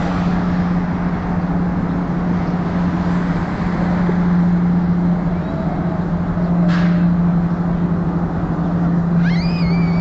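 Motorboat engine running with a steady drone over a rush of wind on the microphone. A short, high call that rises and then holds cuts in near the end.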